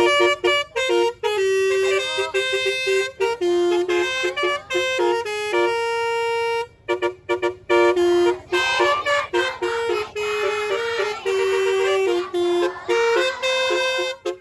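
Angkot minibus's telolet horn playing a tune: a run of loud, held horn notes stepping up and down in pitch, with short breaks between phrases.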